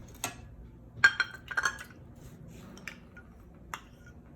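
A spoon clinking against a dish while the cornstarch is stirred into the soup base: a few sharp clinks with a cluster about a second in, some with a short ring.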